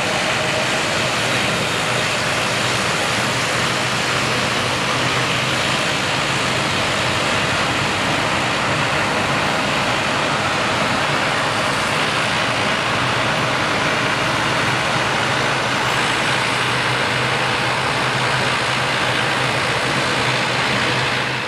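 Twin Pratt & Whitney PW124B turboprop engines and propellers of an ATR 72-202 running steadily at taxi power: an even drone with a constant low tone.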